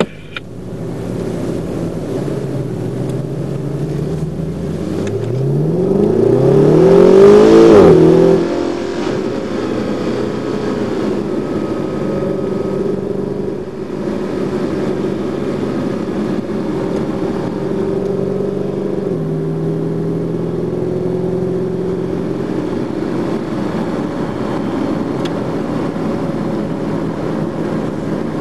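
Mercedes-AMG car's engine heard from inside the cabin, accelerating hard from walking pace. Its pitch climbs to a loud peak, drops sharply at an upshift about eight seconds in, then runs steadily at track speed.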